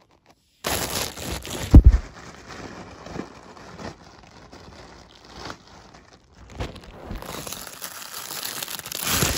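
Plastic mailer bag being torn open, with plastic packaging crinkling and rustling as it is handled; a heavy thump about two seconds in.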